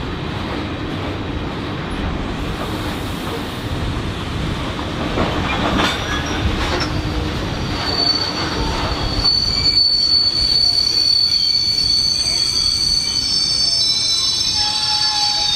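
Railway wagons rolling with a rumble, and a few clanks about a third of the way in. From about halfway the wheels squeal in a steady high tone, and several more squealing tones join near the end.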